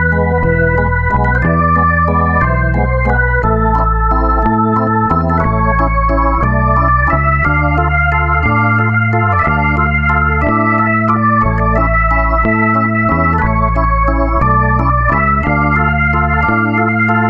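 Instrumental background music: held keyboard chords over a bass line that steps to a new note about every half second to a second.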